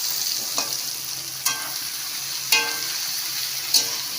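Parboiled vegetables sizzling in hot oil in a kadai while being stirred, with a spatula clinking against the pan four times, about once a second.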